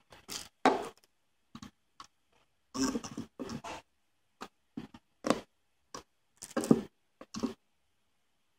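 Handling noise from a small plastic media receiver, a Winstars Airbox, being turned over in the hand, set down on a table and picked up again. It comes as an irregular series of short clicks, taps and brief rustles.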